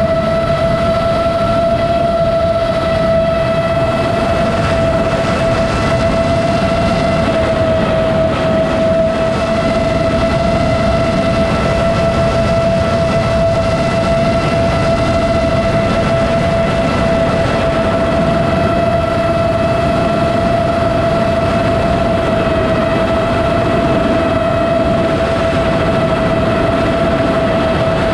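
iFlight Chimera7 FPV quadcopter's motors and propellers giving a steady high whine that holds one pitch at an even throttle, over a constant rushing noise.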